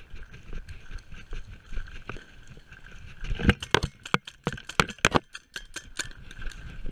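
Paintball markers firing: a quick run of about a dozen sharp cracks, irregularly spaced, starting about halfway through and lasting under two seconds, after a stretch of low rumbling movement noise.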